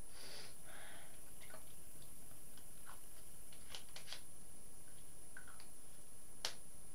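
Light scattered clicks and small handling noises over a steady hiss, with one sharper click near the end.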